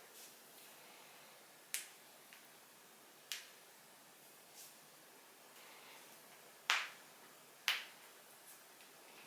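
Human joints cracking: a series of sharp pops, four of them clear and a few fainter ones in between, with the loudest pair coming close together in the second half.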